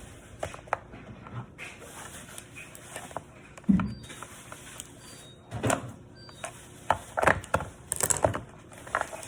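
A toy box being pried and pulled open by hand: scattered clicks, scrapes and knocks of packaging, with one heavier thud a few seconds in and a flurry of clicks near the end.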